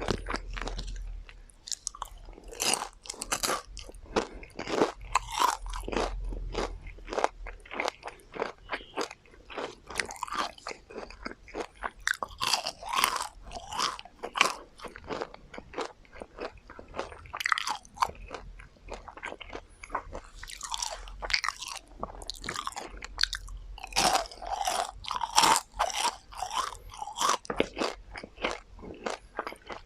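Close-up crunching and chewing of crispy deep-fried chicken tendons, with rapid irregular crackles from bites.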